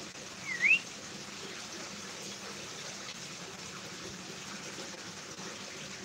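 A lory gives one short whistle about half a second in, dipping slightly and then rising sharply, over a steady background hiss.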